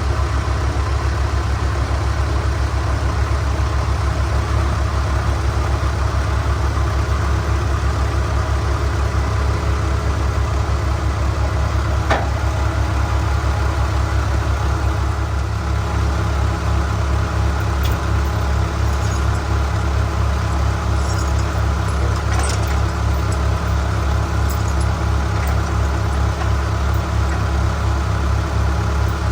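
Tow vehicle's engine running steadily, a low, even drone, with a slight change in its low tone about halfway through.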